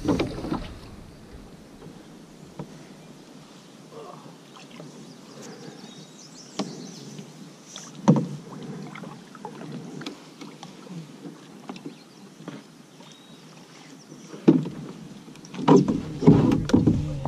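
A canoe being paddled and manoeuvred: quiet water and paddle noise with a few sharp knocks on the canoe, and a cluster of louder knocks and splashing near the end.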